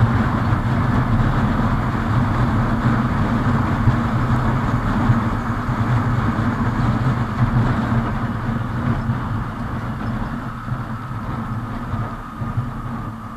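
Hero Super Splendor motorcycle cruising at about 70–80 km/h: a steady engine drone under the rush of wind on the microphone, getting quieter over the last few seconds.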